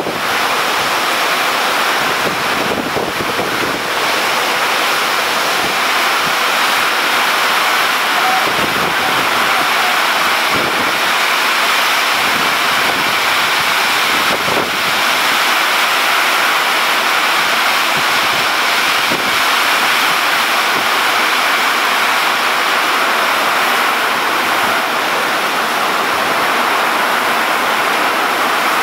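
Heavy rainstorm: a steady loud rush of downpour, with gusts of wind buffeting the microphone now and then.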